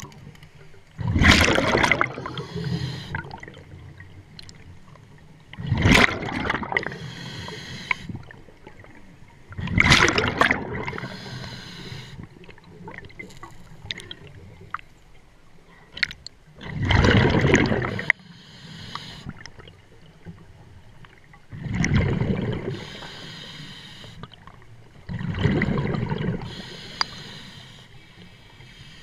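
Scuba diver's regulator exhaust underwater: a loud burst of exhaled bubbles gurgling past about every four to five seconds, six times, with quieter stretches between breaths.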